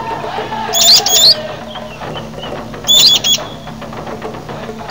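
A bird repeating a short, high, fluttering call of a few quick notes about every two seconds, each call lasting about half a second. The calls are heard twice, with a third beginning at the very end, over a steady low hum.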